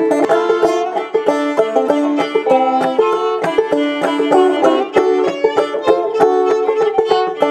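Clawhammer banjo and fiddle playing an old-time tune together, an instrumental break with no singing: a quick run of picked banjo notes over the fiddle's bowed melody.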